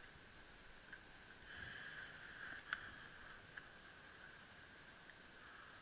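Near silence outdoors: a faint, steady high-pitched hum that swells briefly about one and a half seconds in, with a single sharp click just under three seconds in and a few tiny ticks.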